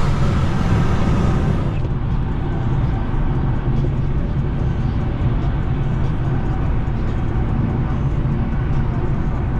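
Steady engine and road drone heard inside the cabin of a tuned Infiniti G37S with a 3.7-litre VQ V6, cruising at an even highway speed.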